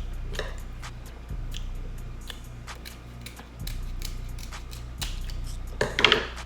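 Close-miked eating sounds from chewing seafood boil: many short wet mouth smacks and clicks. About six seconds in comes a louder, noisier burst lasting about half a second.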